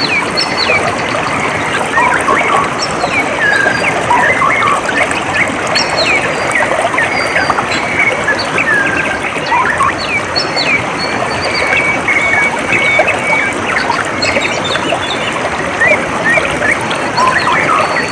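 Water trickling and flowing steadily, with many small birds chirping over it in quick short calls and trills.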